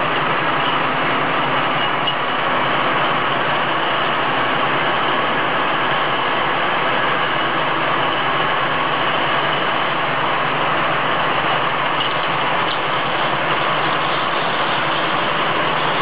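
Automatic glass beer-bottle washing line running: a steady, even machine noise with a faint hum in it, holding level throughout.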